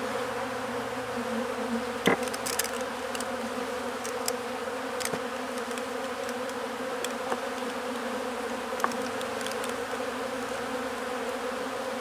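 Honey bees buzzing in a steady drone around an opened wooden hive, with a few light knocks and clicks as wooden frames and a hive tool are handled, the clearest about two seconds in.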